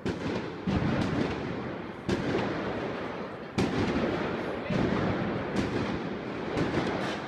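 Firecrackers going off in the street, about seven sharp bangs roughly a second apart, each fading slowly.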